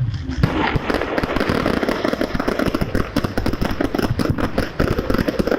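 Aerial fireworks going off in a rapid, dense run of cracks and bangs that sets in about half a second in and keeps going without a break.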